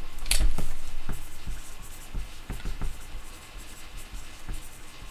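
Light scratching and scattered small taps at a desk. The loudest is a brief scrape in the first half second, followed by irregular soft ticks.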